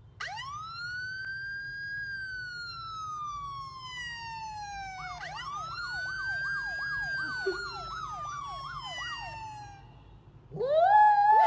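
Electronic police-siren sound played from a smartphone: one long wail that rises and slowly falls, then a fast yelp warbling about three times a second. Near the end a louder, lower, wavering howl begins.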